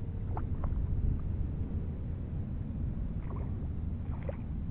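Steady low rumble of breeze and water on the microphone, with a few small splashes from a hooked trout being played at the surface.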